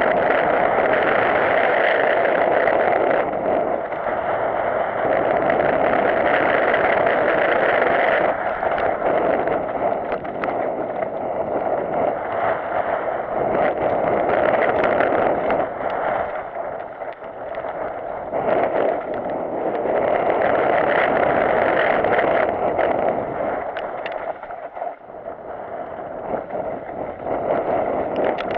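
Mountain bike descending a dirt trail fast, heard through an action camera riding along: a continuous rushing rumble of tyres and wind, with short knocks and rattles from the bike over bumps. It eases off briefly a few times and swells again.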